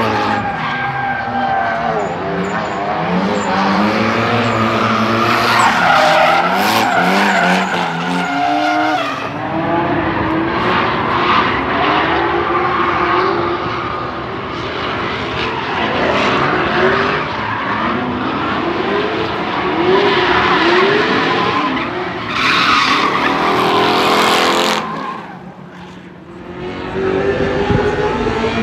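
Drift cars' engines revving hard, their pitch rising and falling again and again, over a steady screech of tyres sliding. The noise dips briefly near the end, then comes back.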